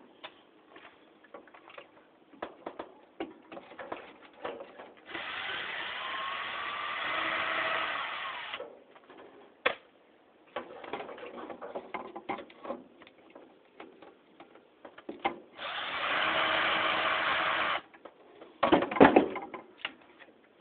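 Power screwdriver backing screws out of a ceiling fan's cap in two runs of a few seconds each, starting about five seconds in and about fifteen seconds in. Light clicks and handling between the runs, and a few loud knocks near the end.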